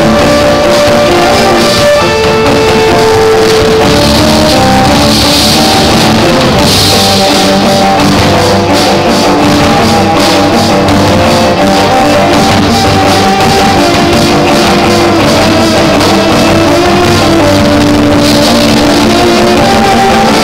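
Live cello rock: several bowed cellos playing held, overlapping melody and bass lines over a drum kit keeping the beat with cymbal crashes, very loud.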